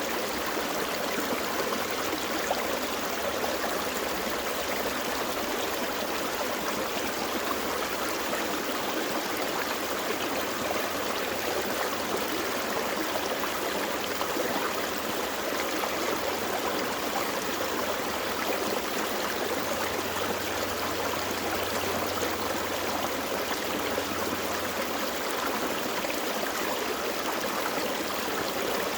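Gentle forest stream flowing, a steady, unbroken rush of running water.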